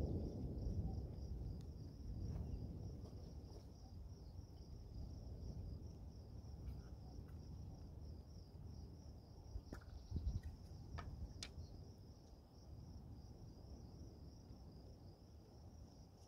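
Thunder rumbling, loudest at the start and dying away over several seconds into a low murmur. A steady high-pitched insect trill runs underneath.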